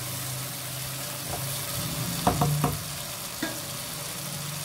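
Okra and green chillies sizzling in oil in a wok, with a steady low hum underneath. A spatula knocks and scrapes against the pan two or three times about two seconds in, once more a second later.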